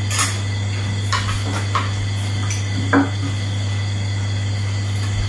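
Metal spoons clinking against ceramic plates and bowls during a meal, four short separate clinks over the first three seconds, over a steady low hum.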